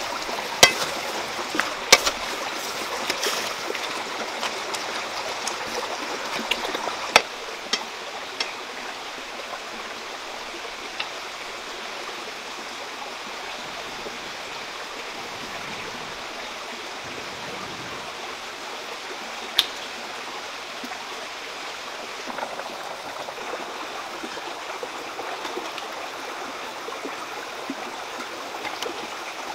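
Steady rush of a flowing stream. A few sharp pops stand out over it in the first several seconds, and one more comes about twenty seconds in.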